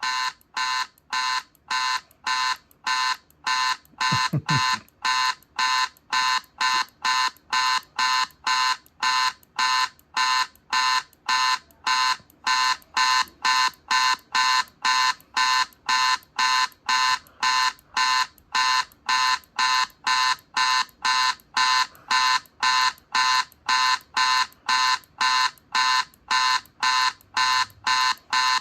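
Electronic beeping: short, high-pitched beeps repeating steadily about twice a second.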